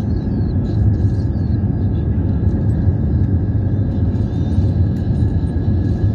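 Jet airliner cabin noise in flight: the steady low rumble of the engines and airflow over the fuselage, with a faint steady whine above it.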